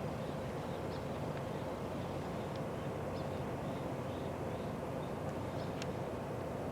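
Steady low machinery hum with a faint held tone, and a few faint short high chirps over it.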